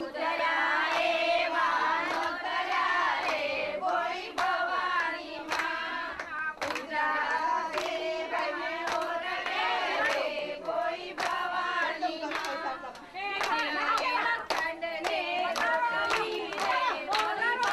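A group of women singing a folk song together while clapping their hands in rhythm, as in a garba circle dance.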